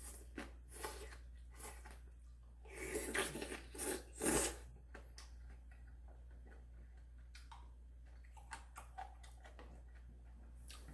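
Close-miked eating sounds: a person eating instant ramen, with scattered soft clicks and chewing and a louder, noisier stretch from about three to four and a half seconds in.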